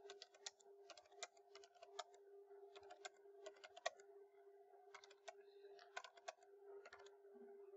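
Faint, irregular clicking of computer keyboard keys, some in quick clusters, as numbers are typed in. A faint steady hum lies underneath.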